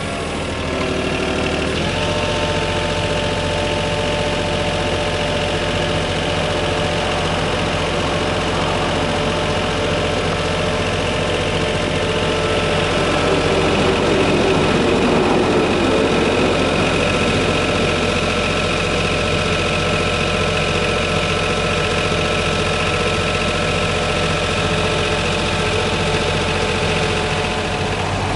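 Diesel engine of a Yanmar VIO20-1 mini excavator running steadily.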